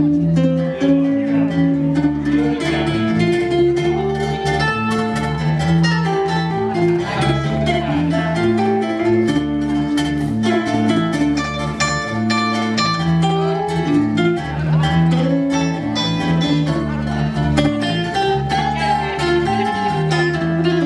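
A live band playing an instrumental passage with no vocals: a guitar melody over a steady bass line, with drums beating throughout.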